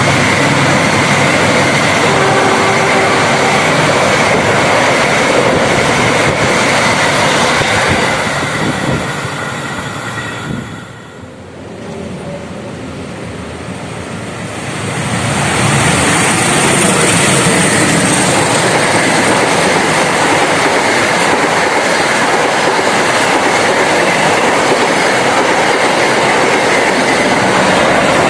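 A fast passenger train running past on the rails, with steady wheel-and-rail roar and clickety-clack. The sound fades out about ten seconds in, and a second train's passing sound builds up again a few seconds later.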